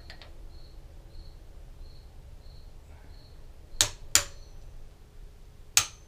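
Tekton click-type torque wrench tightening handlebar clamp bolts to 20 ft-lb: two pairs of sharp metallic clicks about two seconds apart, the wrench breaking over as each bolt reaches the set torque.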